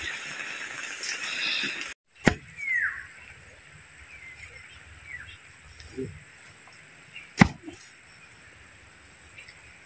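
Two sharp thuds about five seconds apart, the first a couple of seconds in: a bamboo pole being rammed down into the soil to make a deep post hole. Before them a steady hiss cuts off suddenly, and a few short high chirps fall in between the thuds.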